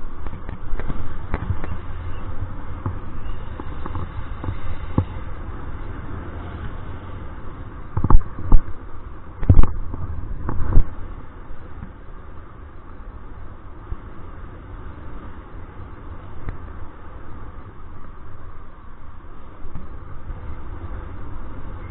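Wind buffeting the camera microphone in flight under a paraglider wing, a steady low rumble. A few loud thumps come close together about eight to eleven seconds in.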